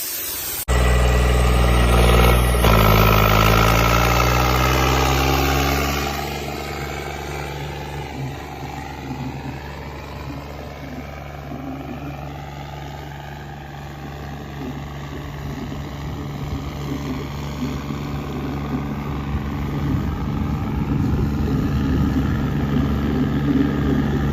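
John Deere 5210 tractor's diesel engine running, its pitch gliding about two seconds in and then holding steady, getting louder near the end. A brief hiss in the first moment.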